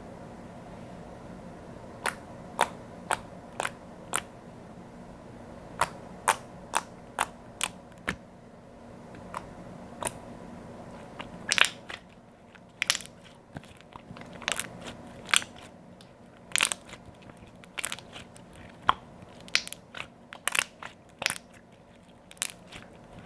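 Clear slime being pressed and worked by hand, giving sharp popping clicks. They start a couple of seconds in, sparse at first, then come quicker and more irregularly in the second half.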